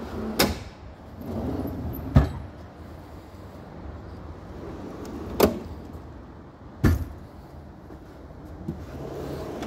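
Red steel toolbox drawers full of sockets and ratchets being pushed shut, with about four sharp knocks a second or two apart as they close and the tools inside rattle.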